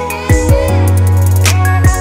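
Background music with a beat and a deep bass line.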